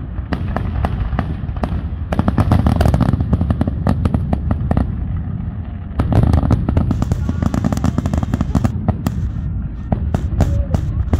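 Aerial fireworks display with many shells bursting in quick succession: deep booming bursts under dense, rapid crackling pops. Louder volleys come in about two seconds in and again about six seconds in.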